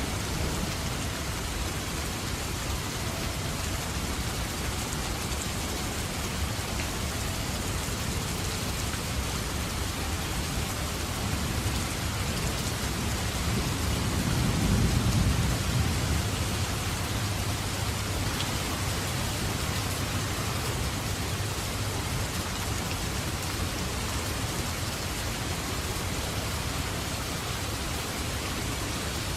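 Steady rain falling through a thunderstorm, with a low roll of thunder swelling and fading about halfway through.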